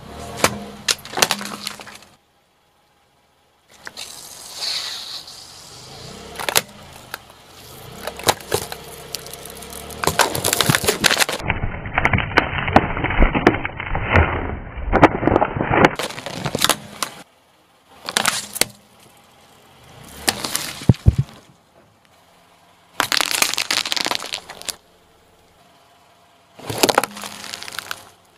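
Car tyre crushing plastic jars of gel beads: a run of separate crunches and cracks as the containers break and burst under the wheel. The longest and loudest comes about halfway through, with short breaks between the crushes.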